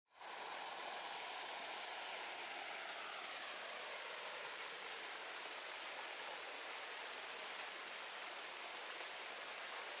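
Two small waterfalls pouring into a pool, making a steady, even rush of falling water.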